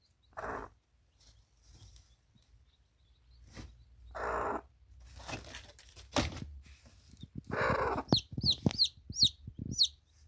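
Chickens clucking and squawking in short calls, with a quick run of high chirps near the end.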